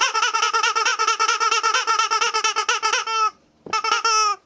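Rubber squeaky toy squeaked rapidly over and over, about nine squeaks a second for three seconds, then two longer single squeaks.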